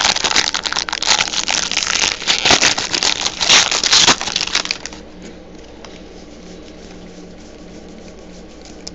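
Foil wrapper of a football trading card pack being torn open and crinkled by hand: a dense crackling that stops about four seconds in, leaving only a faint low hum.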